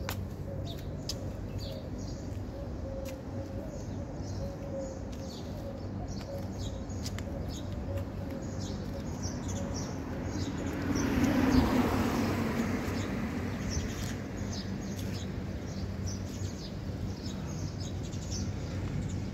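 Small birds chirping again and again over a steady low hum. About eleven seconds in, a broader rushing sound swells up and fades away over a few seconds.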